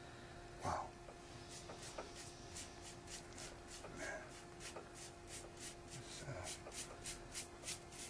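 Brush applying a coat of grit-type liquid hockey tape over the tape on a hockey stick blade: faint, even brushing strokes, a few a second, over a faint steady hum.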